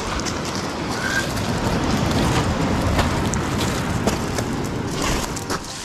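Surf washing up a pebble beach as a steady rushing noise, with a few sharp clicks near the end.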